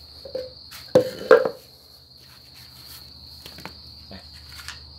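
Crickets chirring steadily, with two sharp knocks about a second in and a few lighter clicks later as hands handle the small chainsaw's air filter cover, the engine switched off.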